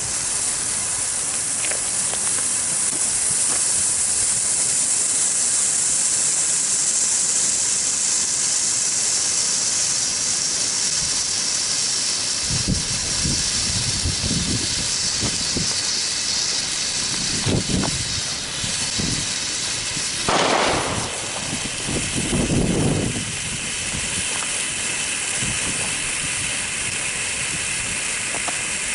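Firework fountain spraying sparks with a loud, steady hiss. Several dull thumps from other fireworks come through from about twelve seconds in, with one sharper bang about twenty seconds in.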